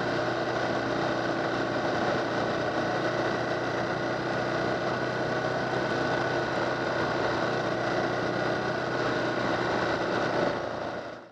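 Motorcycle engine running at a steady cruise, heard from a camera on the moving bike, with a steady drone and no revving. It fades out near the end.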